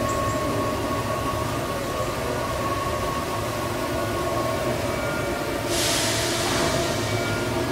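Expedition Everest roller coaster train running on its track: a steady rumble with faint steady tones. About six seconds in, a sudden hiss sounds and fades within about a second.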